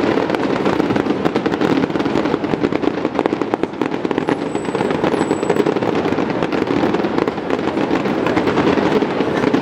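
Aerial fireworks bursting overhead, a dense unbroken run of sharp pops and crackles from glittering star shells.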